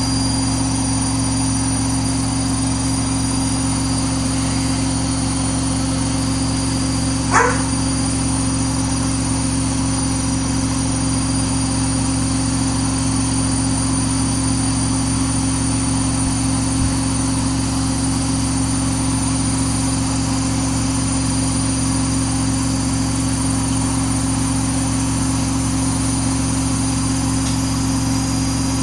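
Samsung WW80J5555FWEU front-loading washing machine running steadily, its motor holding a constant pitch with a steady hum. One brief high squeak or yelp sounds about seven seconds in.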